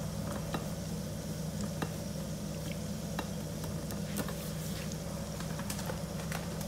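Spring-roll-wrapped cheese sticks shallow-frying in hot oil in a pan: steady sizzling dotted with small pops and crackles. A steady low hum runs underneath.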